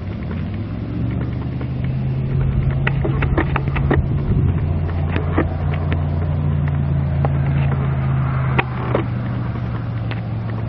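An engine idling with a steady low hum, with a scattered series of sharp clicks over it.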